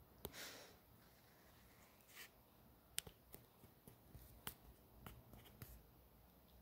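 Near silence: faint room tone with a brief soft rustle about half a second in and scattered light clicks, about six of them, the sharpest about three seconds in.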